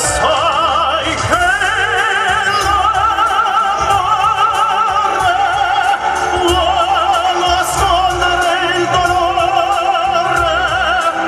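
A male singer holding long notes with heavy vibrato in an operatic-style pop ballad, over backing music with a steady beat.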